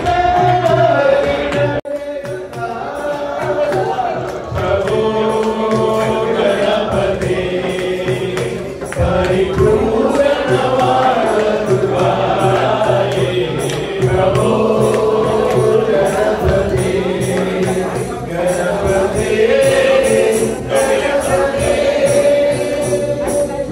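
Devotional singing: a melody sung in long, held notes over steady light percussion.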